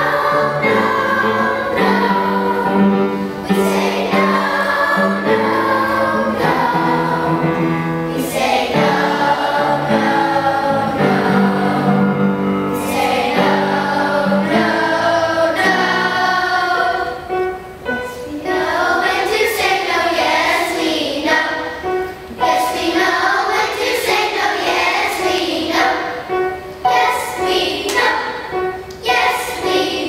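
Children's choir singing a song together.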